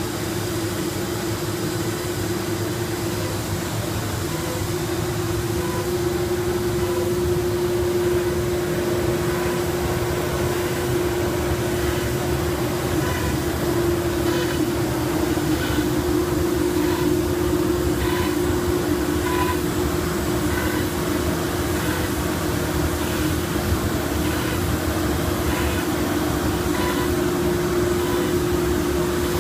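FMT CNC router line boring a row of holes in a plywood closet panel: the spindle's steady hum over the rush of the dust collection, with faint short drilling sounds about once a second from midway on.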